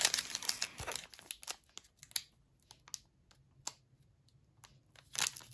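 Foil wrapper of a Pokémon booster pack crinkling, loud at first and dying away after about a second and a half, then a few light clicks as cards are handled, and a louder burst of crinkling near the end.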